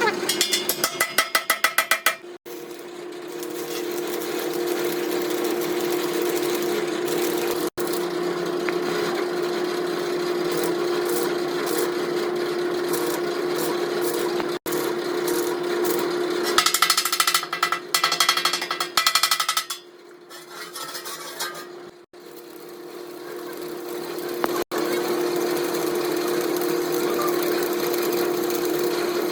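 A steady machine hum with two spells of fast, repeated metal-on-metal impacts from rim repair work: one at the very start and one a little past the middle. The sound breaks off sharply several times.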